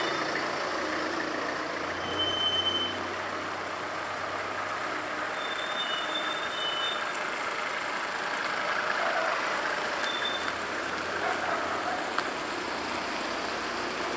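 Cars driving slowly past one after another on a narrow street, engines humming and tyres on the road, the hum swelling as each car draws level. A few short, high-pitched beeps come through about two, six and ten seconds in.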